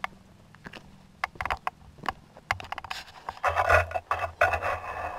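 Footsteps and metal-detector handling on playground pea gravel: scattered light clicks and taps, then about three and a half seconds in a dense, rough crunching noise lasting just under two seconds.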